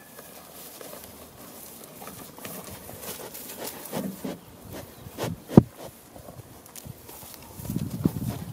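Goats' hooves and footsteps crunching and shuffling on dry straw stubble, with rustling, a sharp knock a little past halfway, and denser crunching near the end.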